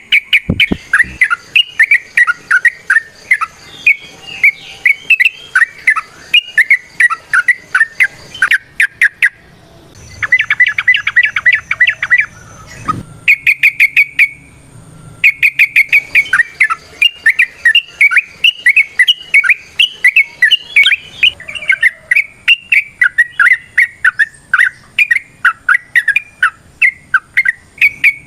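Yellow-vented bulbul (trucukan) singing a loud, fast, varied chattering song of rapidly repeated notes, with short pauses about nine and thirteen seconds in.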